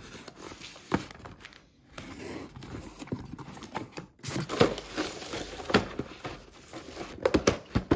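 Cardboard parcel being unboxed by hand: packing tape cut, flaps opened, and honeycomb kraft-paper wrapping crinkling and rustling as it is pulled out. Irregular sharp taps and knocks come from boxes and cardboard being handled.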